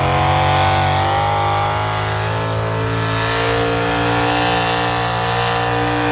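A pulling vehicle's engine running loud at high, steady revs. Its pitch rises a little in the first second, then holds.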